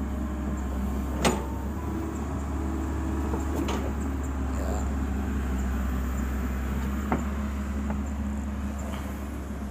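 Excavator's diesel engine running steadily, with three sharp knocks spread through.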